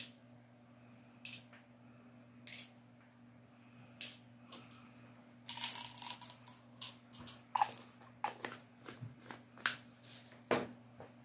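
Small tablets clicking and rattling against hard plastic as they are handled from a prescription bottle and dropped into the compartments of a plastic weekly pill organizer: a few single clicks, then a busier run of clicks from about halfway through.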